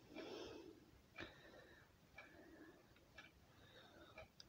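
Faint ticking of a wall clock, one tick a second, in a near-silent room, with a short soft rustle in the first second.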